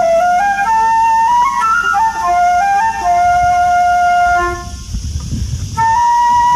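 Solo flute playing a slow melody of held, stepping notes. The melody breaks off for about a second around five seconds in, leaving a low rumble, then resumes.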